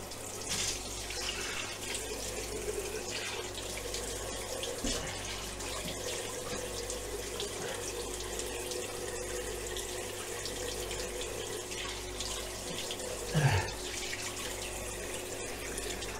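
Bathroom tap running into a sink, a steady rush of water over a low steady hum. A brief, louder sound cuts in once, about thirteen seconds in.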